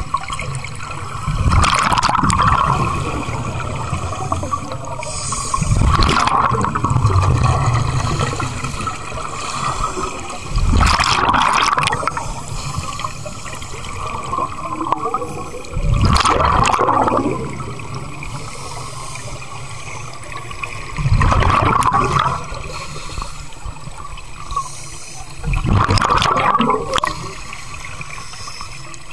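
Scuba diver breathing through a regulator underwater: a loud gush of exhaled bubbles about every five seconds, six in all, with quieter water noise between.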